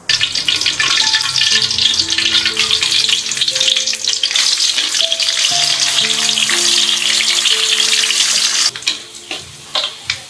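Food frying in hot oil: a loud, dense sizzle that starts suddenly and, near the end, drops to scattered crackles and pops.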